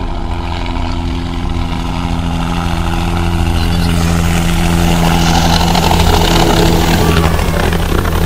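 A light helicopter coming in to land: a steady rotor beat with a low hum under a rushing noise, growing louder as it descends, and on the ground by the end.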